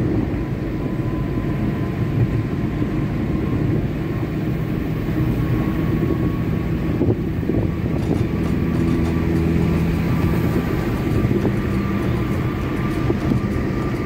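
Car driving at road speed, heard from inside the cabin: a steady engine and road-noise rumble.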